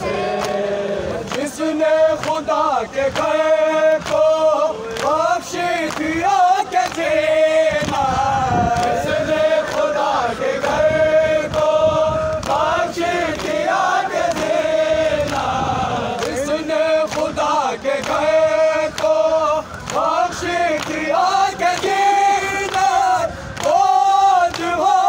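Male voices chanting an Urdu noha, a mourning lament, in unison.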